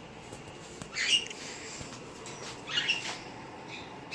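Two short raspy, scratchy sounds from a pet parrot, about a second and a half apart.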